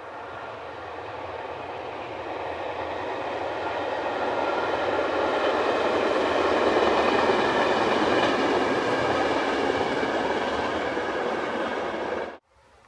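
Electric locomotive-hauled passenger train running over a concrete viaduct. The rumble of wheels on rail grows louder to a peak about halfway through, eases a little, then cuts off suddenly near the end.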